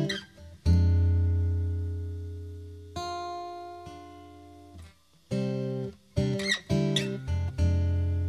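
Acoustic guitar music: slow strummed chords, each left to ring out and fade, with a quicker run of strums about six seconds in.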